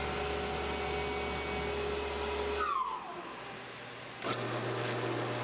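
Tormach PCNC 1100 mill spindle running with a steady whir. It gives way to a brief falling whine and a quieter stretch, then about four seconds in a click as a drill press motor switches on and runs with a low steady hum.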